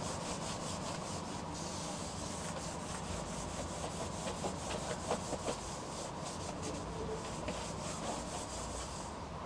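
Handheld whiteboard eraser rubbed over a whiteboard in quick repeated strokes, wiping off the writing.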